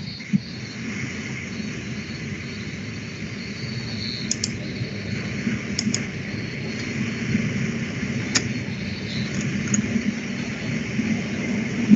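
Steady background hiss and low rumble picked up by an open microphone on a video call, with a few faint clicks.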